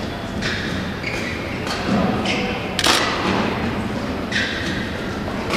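Badminton rally: rackets striking a shuttlecock back and forth, about five or six sharp hits roughly a second apart, the loudest near the middle.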